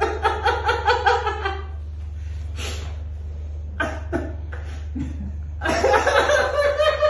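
A man laughing helplessly in two fits of rapid, rhythmic ha-ha pulses, with a sharp breath and a couple of short laughs in the lull between them: laughter from a condition of extreme ticklishness.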